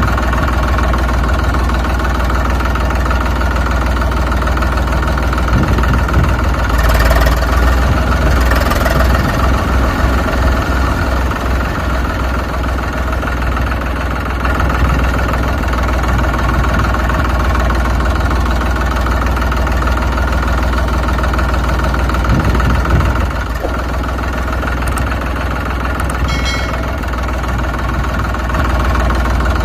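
A tractor-type engine running steadily at idle, with a deep low hum and a slight rise in level twice.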